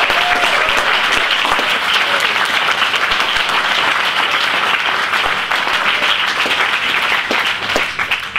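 Audience applauding, a dense, steady clapping that cuts off suddenly at the end.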